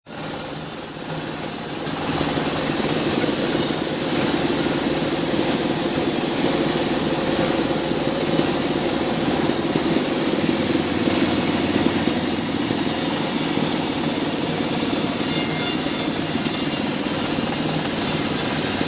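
Sawmill saw machinery running steadily with a continuous mechanical drone, growing louder about two seconds in, while sawing mahogany.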